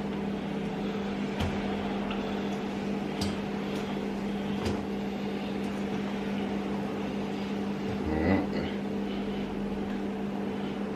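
A steady low mechanical hum, like a kitchen appliance or fan, over a faint hiss of banana dumplings frying in oil, with a few light utensil clicks and a louder knock about eight seconds in.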